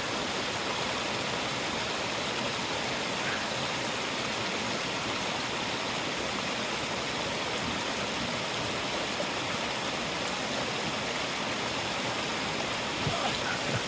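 Small rocky mountain creek running over rocks: a steady, even rush of water, with a few faint knocks near the end.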